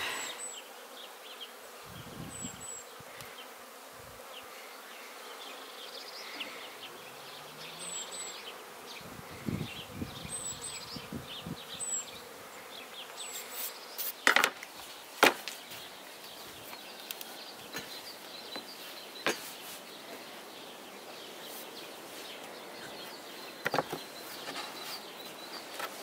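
Honeybees buzzing steadily around their hives, with a few sharp knocks: two about halfway through and another near the end.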